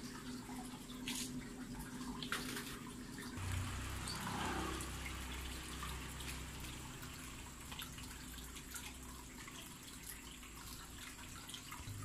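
Faint steady trickle of running water, with scattered small clicks and a low rumble from about three to nine seconds in.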